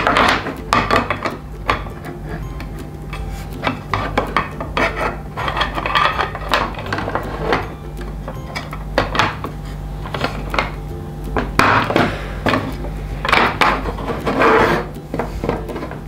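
Hard plastic toy parts being handled and pressed together: a Playmobil stable roof pushed and wiggled onto its posts, with irregular clicks, knocks and rubbing scrapes of plastic on plastic.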